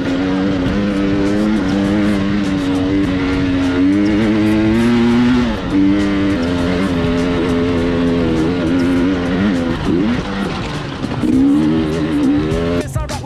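Dirt bike engine running under way, its pitch rising and falling with the throttle. Music with a beat starts near the end.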